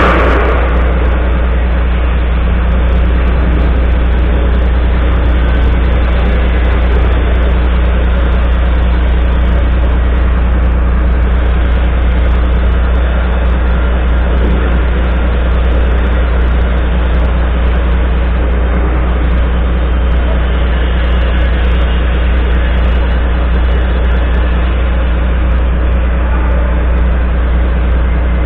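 Volvo FMX 440 truck's diesel engine idling steadily, a loud, even low hum.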